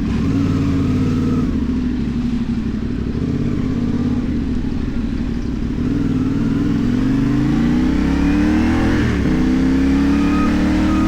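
CFMoto 450NK's parallel-twin engine through a LeoVince aftermarket exhaust. It runs steadily at first, then climbs in pitch as it accelerates, drops sharply just after nine seconds in as if shifting up a gear, and climbs again.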